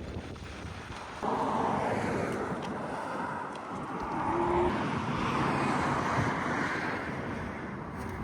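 Sea surf washing onto a beach, with wind on the microphone. The rush comes in suddenly about a second in, swells again midway and eases off near the end.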